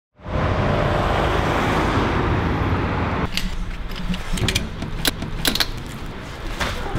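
A steady rushing noise for about three seconds, then a run of sharp, irregular clicks and snaps from a ratchet tie-down strap being cranked tight and its strapping pulled.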